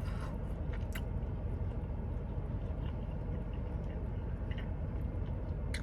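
A person chewing food quietly, with a few soft mouth clicks, over a steady low background hum.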